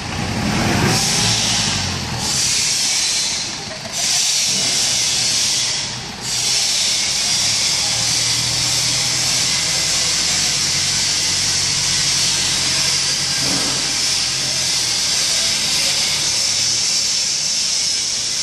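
Forklift engine running steadily as the truck drives slowly, under a loud steady hiss that dips briefly a few times in the first six seconds.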